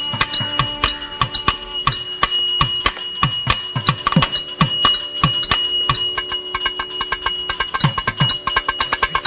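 A temple bell rung rapidly and without pause, a steady high ring over fast even strokes, with a deep drum struck about once a second beneath it. This is the ritual accompaniment to the abhishekam bathing of the deity.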